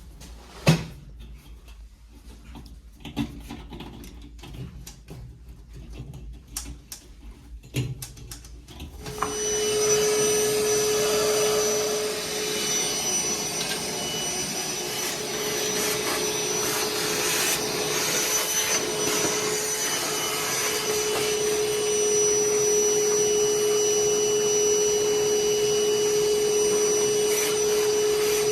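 A few clicks and knocks of furnace parts being handled, then about nine seconds in a vacuum cleaner is switched on and runs steadily with a constant hum and a high whine, used to clean out the furnace.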